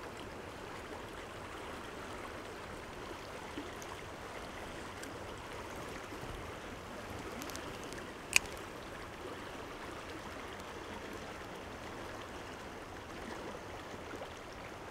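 Stream water flowing steadily, with one sharp click a little over eight seconds in.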